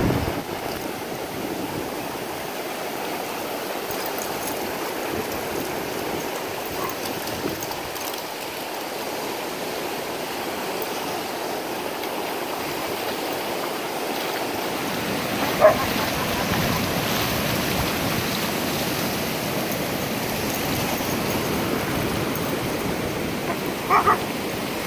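Ocean surf washing up the beach in a steady rush, with two short dog barks, one about two-thirds of the way through and one near the end.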